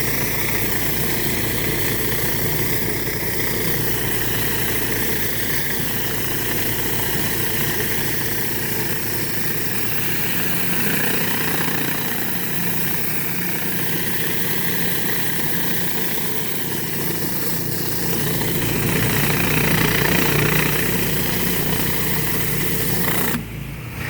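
Pressure washer's engine running steadily while a rotary surface cleaner sprays low-pressure water over a concrete driveway, a constant hiss over the engine hum. The sound cuts off abruptly near the end.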